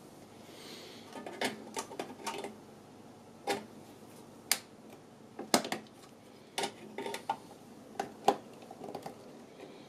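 Sharp, irregular metallic clicks and taps, a dozen or so starting about a second in: pliers and hands knocking on an LCD monitor's sheet-steel power-supply cover while the VGA connector's screws are gripped and turned with the pliers.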